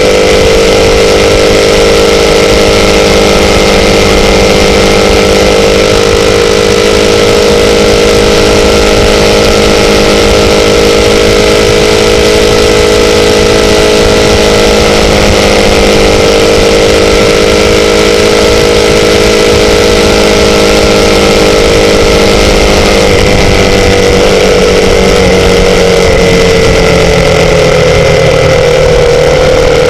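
Motorcycle engine running at a steady speed, loud, over a constant rushing noise. Its pitch shifts about two-thirds of the way through and then eases gradually down as the bike slows.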